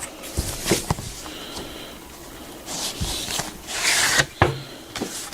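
Cardboard slipcover being slid off a plastic Blu-ray case: a few sharp taps and clicks, then a longer scraping slide in the second half.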